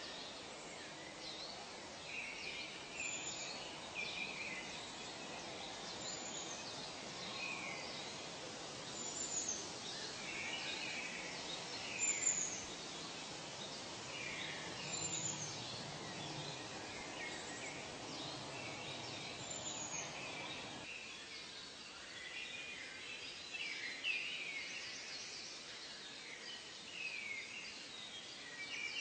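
Many birds chirping and calling over a steady background hiss, with a short high whistle repeating about every three seconds for much of the time. The low hiss drops away about three quarters of the way through, leaving the birdsong clearer.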